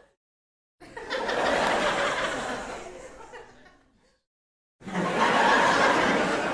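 Studio audience laugh track: two separate bursts of crowd laughter, the first starting abruptly about a second in and fading away, the second cutting in abruptly about five seconds in, with dead silence between them.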